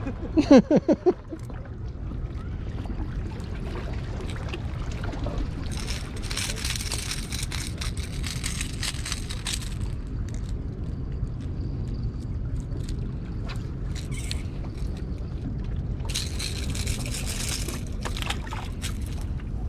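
Shoreline ambience: a steady low rumble of surf and wind, with two spells of hissing water wash, a longer one about six seconds in and a shorter one about sixteen seconds in.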